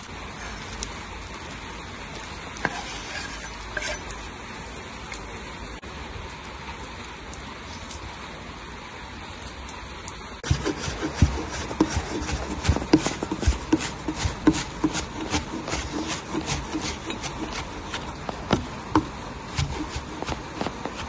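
A steady hiss, then from about halfway in a kitchen knife chopping fresh dill on a wooden cutting board: quick, irregular knocks of the blade on the board, several a second.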